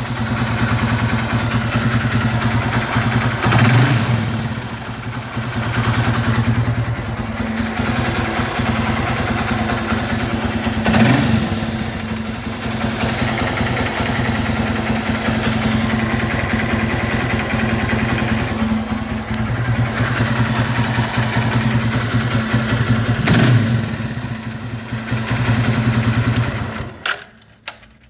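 150 cc motorcycle engine idling with a rapid tic-tic-tic ticking noise, swelling briefly a few times, then shut off near the end.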